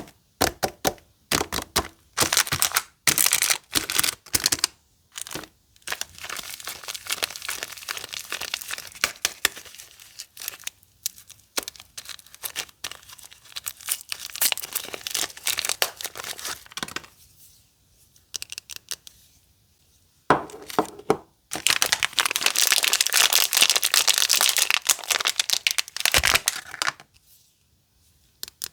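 Soap wrappers crinkling and tearing as soaps are unwrapped by hand, in crackling bursts with short pauses. The densest, loudest crinkling comes in a long stretch starting about two-thirds of the way in, then it goes quiet near the end.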